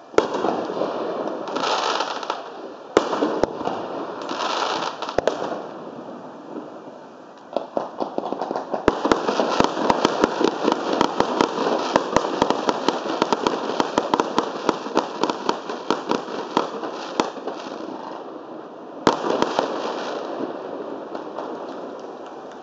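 Aerial fireworks bursting: a sharp bang at the start and another about three seconds in, then a long, dense run of rapid crackling pops. A last bang comes near the end and fades away.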